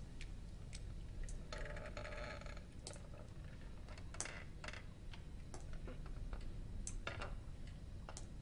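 Low steady hum with scattered small clicks and taps, and a brief rustle about two seconds in.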